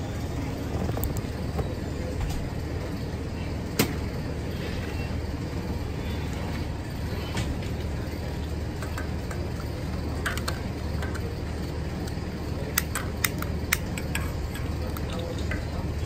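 Propane turkey-fryer burner running with a steady low rush, with a few sharp clicks and taps scattered through, heard once it has just been lit.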